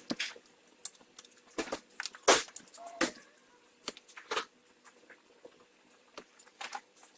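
Irregular clicks and light knocks of metal parts and tools being handled while a front shock absorber strut is reassembled, the two loudest knocks coming about two and three seconds in.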